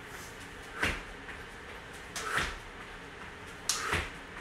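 Tuck jumps on rubber gym floor mats: a landing thud about every second and a half, three times.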